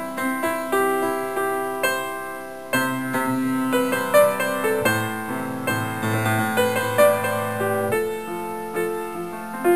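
Piano music: notes struck one after another, each fading, over held lower notes.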